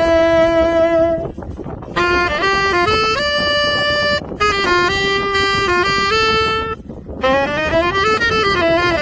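Saxophone playing a slow melody in long held notes, breaking off briefly between phrases about a second, four seconds and seven seconds in.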